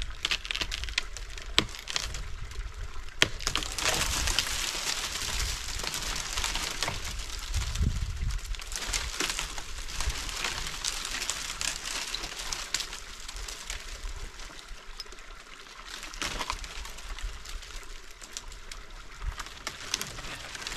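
Dry tree branches rustling and cracking as a man climbs among them and works at the limbs. Many sharp snaps sound over a steady hiss, with wind rumbling on the microphone.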